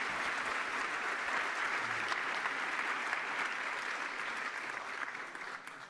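Audience applauding, the clapping thinning out and dying away near the end.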